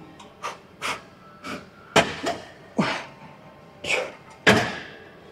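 A series of irregular knocks and clanks from gym equipment being worked through a set of reps, about eight in five seconds. The loudest come about two seconds in and near the end.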